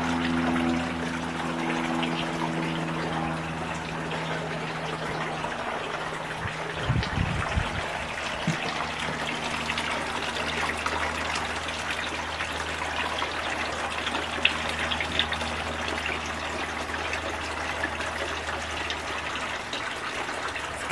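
Steady trickling of running water, with a low steady hum underneath and a few low bumps about seven seconds in.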